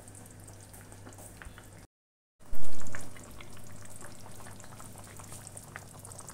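Kebab gravy simmering in a karahi, a faint bubbling with many small pops. About two seconds in the sound drops out briefly and comes back with a sudden dull thump.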